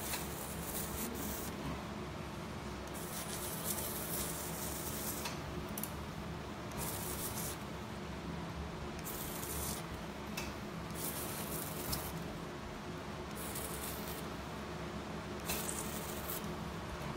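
Steady hum of operating-room equipment, with about ten short hissing bursts, each under a second or so, from surgical instruments working on tissue during the excision of an accessory breast gland in the armpit.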